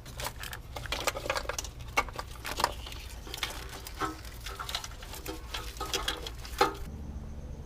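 Engine wiring harness and its plastic clips being wiggled and pulled by hand, a dense run of irregular clicks and rustles that stops about seven seconds in.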